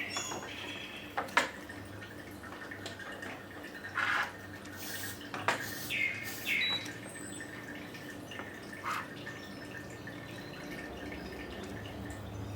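Water dripping and splashing, with scattered small clinks and a few short splashy hisses about four to six and a half seconds in, over a faint steady hum.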